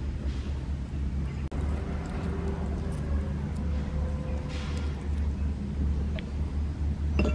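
A steady low rumble, with a metal spoon stirring liquid sauce in a ceramic bowl and clinking faintly a couple of times near the end.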